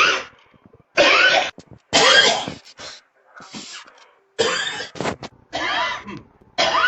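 A person coughing hard: a series of about six harsh, rasping coughs, each about half a second long and roughly a second apart.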